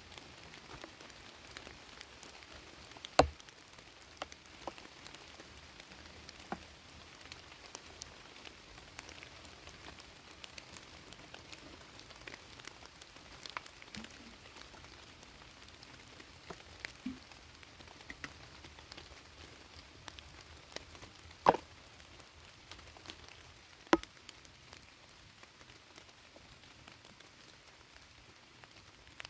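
Rain falling, with many small scattered drop ticks over a steady faint hiss. Three much louder single drop-like knocks stand out, about three seconds in and twice near the end.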